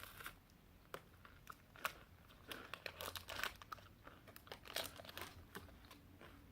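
Coffee Crisp candy-bar wrapper crinkling and the crunchy wafer bar being bitten and chewed, in short irregular crackles.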